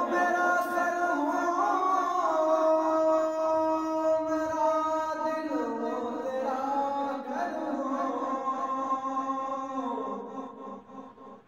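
A single voice chanting an Islamic recitation in long, held, ornamented phrases, each note drawn out for several seconds with sliding turns between pitches; it fades near the end.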